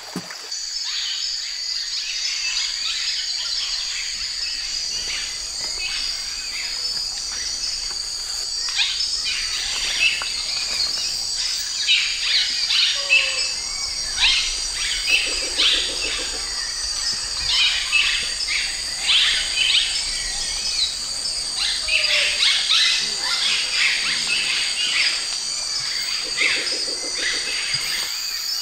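Tropical rainforest ambience: a steady high insect drone with many bird calls and chirps over it. About halfway through and again near the end, a lower pulsed call comes in.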